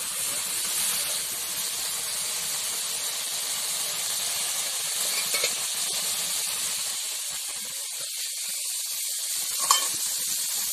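Small puti fish (pool barb) sizzling steadily in a spicy gravy boiled down nearly dry in a metal karai, the sign the jhal is almost done. A spatula stirs and clinks against the pan a few times, most sharply near the end.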